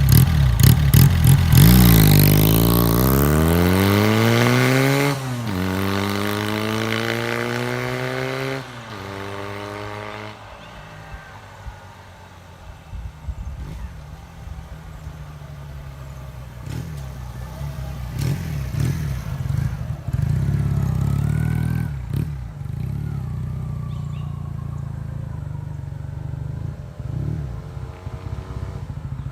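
Honda CD200 Roadmaster's air-cooled parallel-twin four-stroke engine through its stock silencers, pulling away hard: the pitch climbs, drops at two gear changes about 5 and 8.5 seconds in, then the sound fades away after about 10 seconds, with a faint engine after that.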